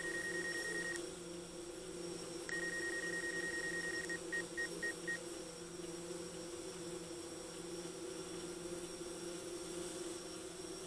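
DJI quadcopter drone's propellers humming steadily, with a rapid high electronic beeping that stops about a second in, starts again for about a second and a half, then ends in four single beeps.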